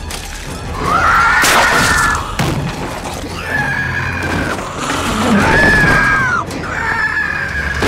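Four long, high shrieks of about a second each, with a sharp crash near the first, over a film score.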